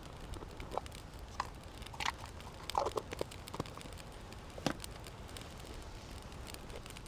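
Twigs catching in a small homemade wood-chip stove, with scattered sharp snaps and crackles, a short cluster of them about three seconds in.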